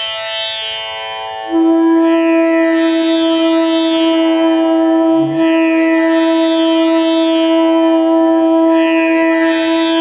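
Bamboo bansuri flute holding one long steady note, the Pa, over a tanpura drone that is plucked in a repeating cycle. The flute comes in about a second and a half in, with a brief break near the middle. The note is a tuning check of the flute's Pa against the tanpura, and it sits in tune with the drone.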